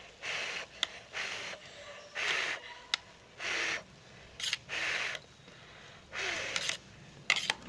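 Spoon stirring boiling milk in an electric kettle: a series of short scraping strokes, about one a second, against the kettle's inside, with a few sharp clicks of the spoon on the metal between them.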